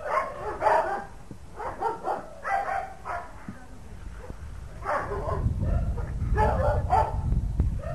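Dog barking in a series of short barks. A low rumble comes in about five seconds in.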